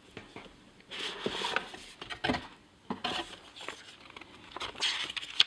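Cardboard retail box being opened by hand: the lid scraping and the card and a printed leaflet rustling, with several light clicks and taps of card on card.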